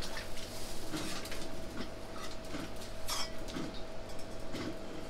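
Chopsticks clinking against a stainless-steel bowl as eggs are beaten: irregular sharp clicks over a steady hum.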